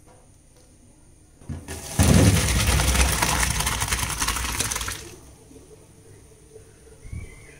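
Boiled mushrooms and their hot water poured from a pot into a bowl in a sink: a loud splashing pour that starts about two seconds in and lasts about three seconds.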